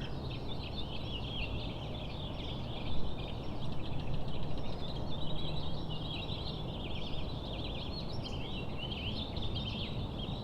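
Many small birds chirping and twittering together, a dense chorus over a steady low background rumble, with a brief louder sound about three seconds in.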